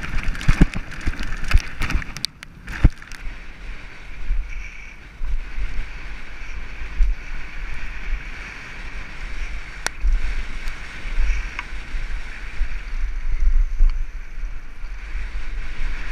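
Wind buffeting an action camera's microphone and mountain-bike tyres rolling over a dirt trail during a fast downhill descent. In the first few seconds the bike clatters and rattles over rough ground, then the sound settles into a steady rush of wind and tyre noise.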